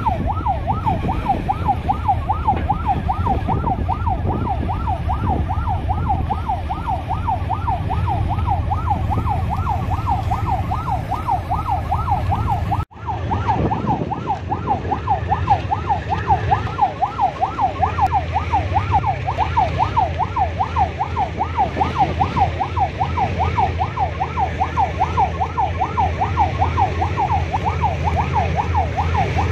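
Electronic siren in a fast warble, sweeping up and down about three or four times a second over a low rumble, cut off for an instant about halfway through.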